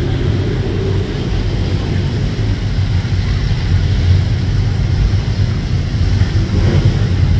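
Steady low rumble of road traffic and car engines.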